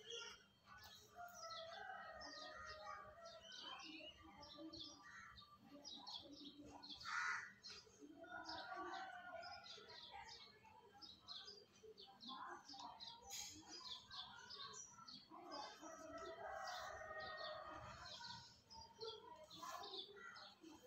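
Faint birds chirping in the background, many short quick calls scattered throughout.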